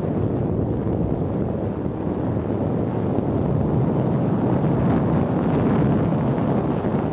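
Steady rumble of a car driving along a narrow paved road: engine and tyre noise, with wind buffeting the microphone.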